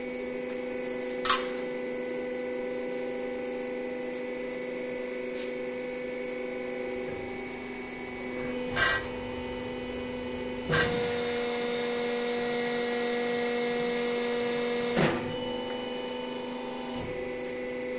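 The 7.5 kW hydraulic pump of a Durma HAP 2580 CNC press brake hums steadily, with sharp clicks and knocks as the sheet is set and the ram is brought down. About eleven seconds in, the hum grows louder and holds for some four seconds while the ram presses the 1.5 mm sheet into the die under full pressure. The hum then drops back as the pressure is released.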